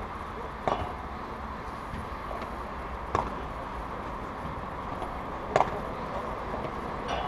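Padel rally: the ball struck by rackets with sharp pops roughly every two and a half seconds, the loudest about five and a half seconds in, over steady background noise.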